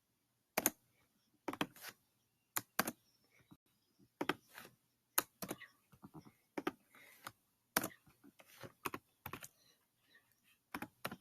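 Scattered clicks of a computer keyboard and mouse, irregular, roughly one or two a second with some in quick pairs, as text boxes are copied and pasted.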